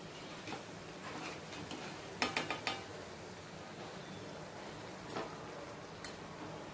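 Vada deep-frying in hot oil in an iron kadai, a steady low sizzle, with a quick run of four or five metal clicks about two seconds in and single clinks later, as a steel slotted spatula knocks against the pan while scooping a vada out.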